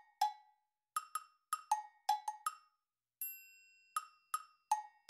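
Background music: a light, bouncy tune of pitched wood-block knocks. About three seconds in, a single bell-like chime rings out and fades.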